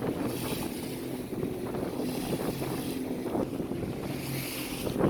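Small fishing boat's motor running steadily, with wind buffeting the microphone and sea water around the hull.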